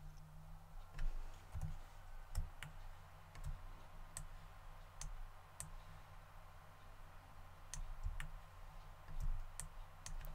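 Computer mouse buttons clicking, a dozen or so sharp clicks at irregular intervals, over a faint steady low hum.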